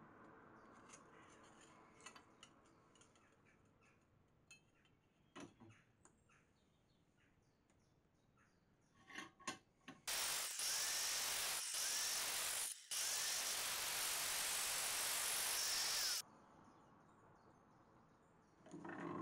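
Angle grinder cutting a thin copper sheet clamped in a bench vise. It runs for about six seconds with a brief drop midway, after a few light clicks and taps of the sheet being handled.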